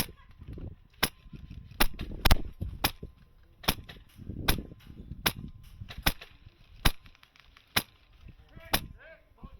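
High-pressure-air airsoft M4, a Wolverine MTW, firing single shots: about a dozen sharp cracks spaced roughly a second apart, unevenly, as in semi-automatic fire.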